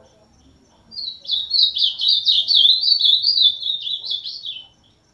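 Ultramarine grosbeak (azulão) singing one phrase of rapid warbled notes sliding up and down, starting about a second in and lasting about three and a half seconds.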